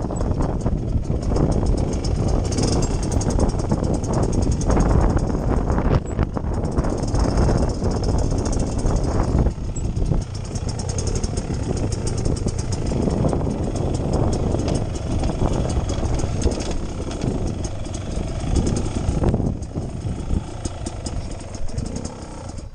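Beta Xtrainer 300's single-cylinder two-stroke engine running at low speed on a rough trail, the throttle easing off and coming back on a few times.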